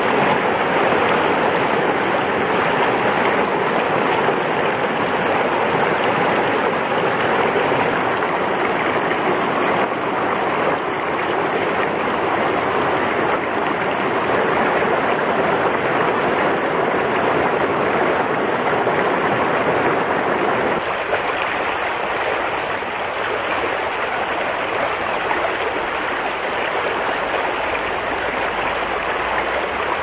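A rocky creek rushing and splashing over boulders and stones in a steady, even wash of water. About two-thirds of the way in, the deeper part of the rush drops away and the water sounds lighter.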